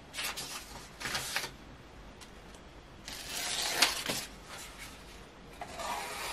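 Thin paper leaflet being sliced with a freshly sharpened hatchet edge as a sharpness test: several short papery rustling cuts, the longest and loudest about three seconds in with a sharp tick.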